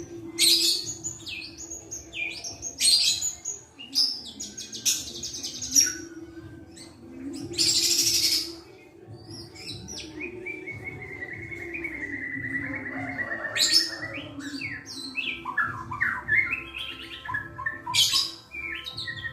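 Young captive white-rumped shama singing a varied song of quick whistled and chattering phrases, with a loud harsh burst about eight seconds in and a long trill drifting slightly down in pitch through the middle.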